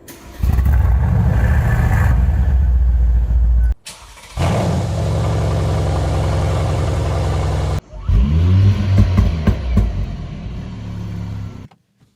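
Mercedes-AMG C63 exhaust in three cut-together clips: a loud steady run that comes in suddenly about half a second in, a second steady run, then revs rising and falling several times.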